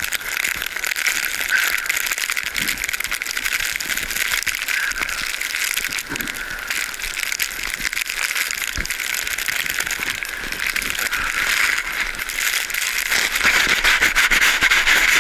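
Continuous crackling, rustling noise on a GoPro Hero 3's microphone as the camera is carried through a blizzard, thick with fine clicks and a few faint knocks, growing louder near the end.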